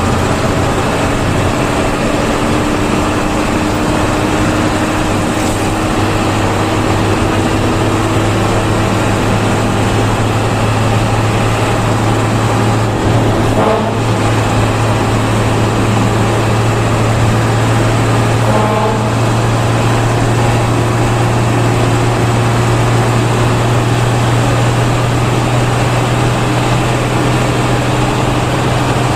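Bus engine and road noise heard from inside the moving bus: a steady low drone, with a faint tone slowly rising over the first ten seconds.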